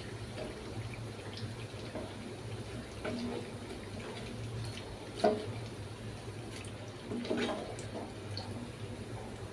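Hot oil in a kadhai, faintly bubbling and dripping back from fried snack sticks drained in a wire strainer over the pan. A few short clinks of the steel slotted skimmer against the strainer and pan, the sharpest about five seconds in.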